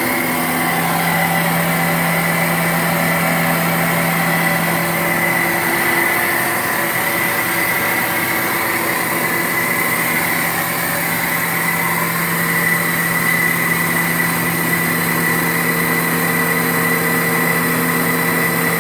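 CNC wood lathe running steadily in a bat factory: a constant machine hum with a high, steady whine.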